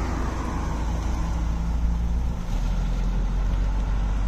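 Engine and exhaust of an early-1960s Chevrolet Impala pulling away at low speed: a steady, deep drone that drops in pitch a little over halfway through.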